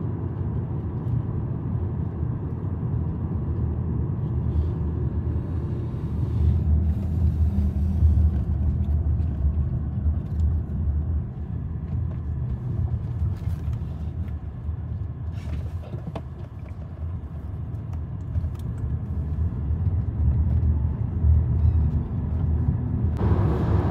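Low, steady road rumble inside the cabin of a Haval H6 HEV driving slowly through a toll plaza. It dips as the car slows and grows again near the end as it picks up speed.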